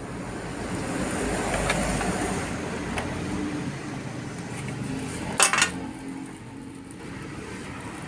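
Handling noise of small hard objects: light clicks and clinks, with a sharp double click about five and a half seconds in, over a steady low background rumble.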